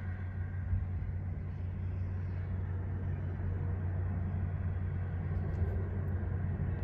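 Low rumble of a jet airliner on final approach, slowly growing louder as it nears.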